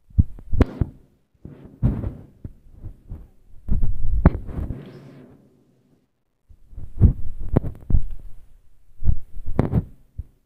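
Fireworks going off: clusters of booms and sharp pops in five groups. A short crackling hiss comes about four to five seconds in.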